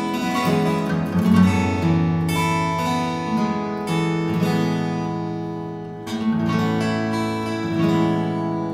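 Acoustic guitar playing ringing chords, with a new chord or note group struck every second or two.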